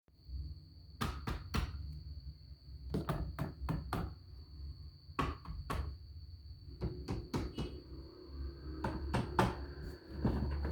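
Hard plastic toy vehicles and their packaging being handled: irregular sharp clicks and knocks, several in quick groups, over a low hum and a faint steady high-pitched whine.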